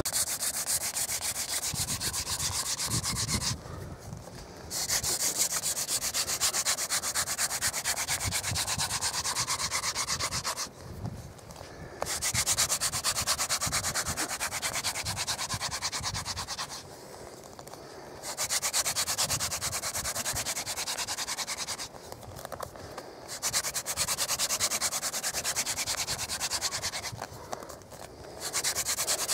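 Hand-drill friction fire: a wooden spindle spun back and forth between the palms, grinding into a wooden hearth board with a fast, scratchy rubbing hiss as it works up toward an ember. The drilling comes in about six spells of several seconds each, broken by short pauses of about a second.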